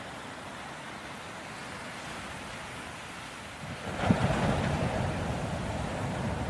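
Ocean surf: a steady wash of sea noise, then a wave breaks about four seconds in with a low rumble and a louder rush of water that keeps going.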